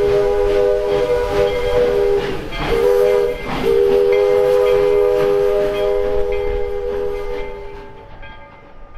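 Virginia & Truckee No. 25, a 4-4-0 steam locomotive, blowing its chime steam whistle: several notes sound together as a chord in a long blast, a short one and another long one. Rhythmic exhaust chuffing runs underneath, and the whistle cuts off near the end.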